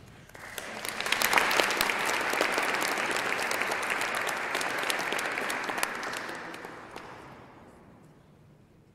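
Audience applauding: the clapping builds up over the first second, holds steady for several seconds, then dies away over the last few seconds.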